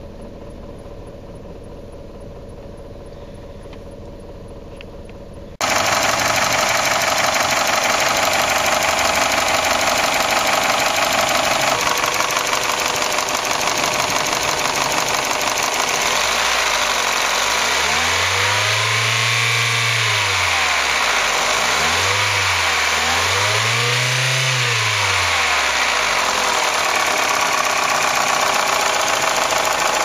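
Warmed-up Toyota 3S-FE 2.0-litre inline-four idling, first quietly and muffled, then much louder and clattery about six seconds in. Near two thirds of the way through, the throttle is blipped twice by hand, each time revs rising and falling. This loud clatter is normal for a properly running 3S-FE, not a sign of damage.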